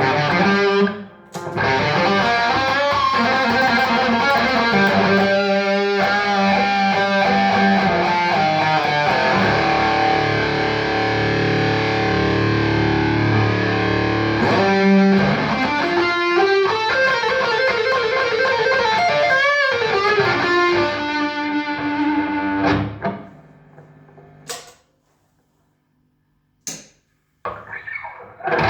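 Electric guitar with humbuckers played straight into a Trace Elliot Trident valve combo amp with 6L6 power tubes, strumming chords and picking riffs. About 23 seconds in the playing stops and the notes ring out to near silence, then it starts again just before the end.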